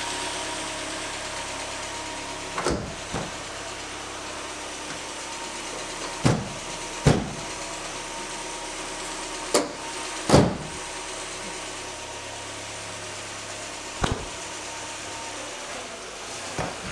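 Mercedes C-Class engine idling steadily after an oil change, the light tick it had at start-up now gone. A few short, sharp knocks come every few seconds, the loudest about ten seconds in.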